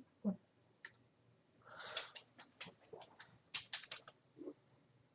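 Faint light clicks and taps of small objects being handled, with a short breathy hiss about two seconds in.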